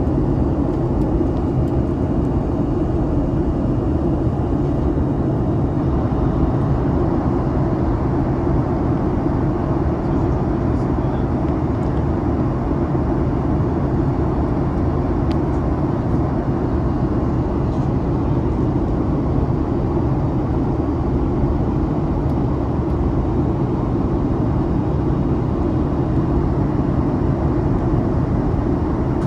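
Steady cabin noise inside a Boeing 737 MAX airliner in flight: an even, deep rumble of engines and rushing air.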